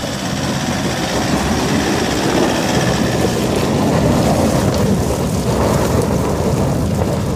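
Toyota Land Cruiser 120 four-wheel drive crawling past on a rocky dirt track: a steady rumble of engine and tyres crunching over loose stones.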